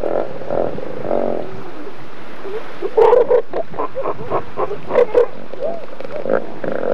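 Southern elephant seal calling: a run of short, throaty pulses, about five a second, from about two and a half seconds in to about five seconds in, over a steady hiss of background noise.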